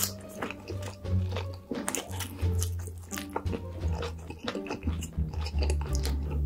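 Background music with a steady low bass line, mixed with close-miked chewing of a mouthful of French fries: many short, sharp mouth clicks.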